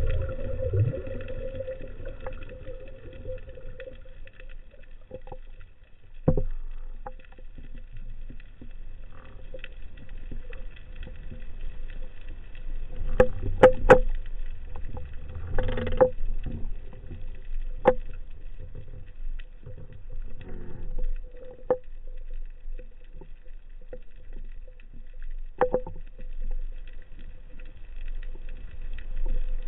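Muffled underwater sound from a spearfishing dive: a low rumbling wash with a steady faint hum, broken by sharp clicks and knocks a handful of times.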